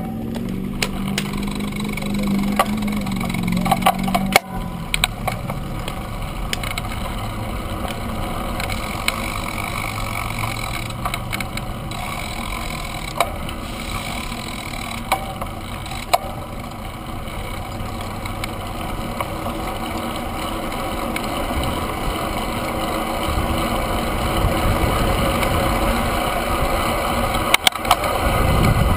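Road bicycle rolling on asphalt, heard through a handlebar-mounted camera: a steady rush of tyre and wind noise with frequent small clicks and rattles, a little louder near the end.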